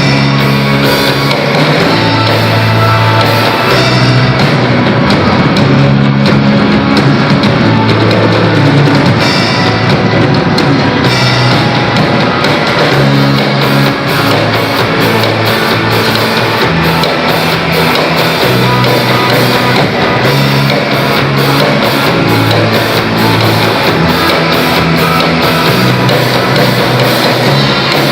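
Rock band playing loudly, with a drum kit beating steadily over a changing bass line and heavy, dense guitar-band sound.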